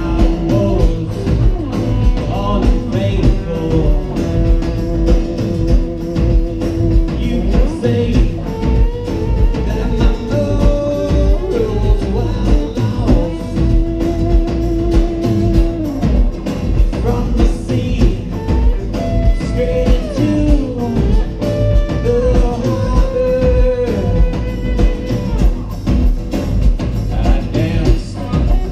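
A live rock band playing: drum kit keeping a steady beat under acoustic and electric guitars, heard through the stage PA.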